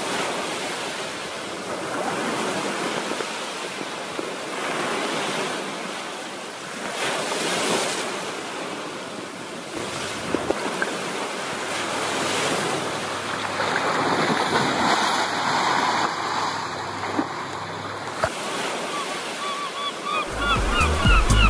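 Sea surf washing and breaking against rocks, swelling every few seconds. Near the end a gull calls repeatedly and music with a heavy low beat comes in.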